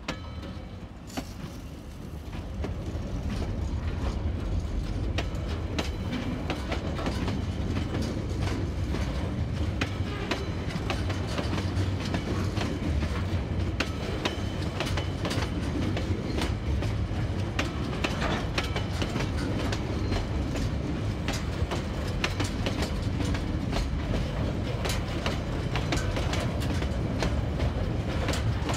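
Container wagons of a freight train rolling past, a steady low rumble with repeated clicks and clacks from the wheels on the rail. It grows louder over the first few seconds, then holds steady.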